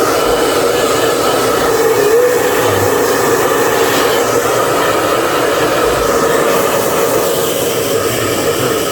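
Handheld hair dryer running steadily, a constant rush of air with a steady whine.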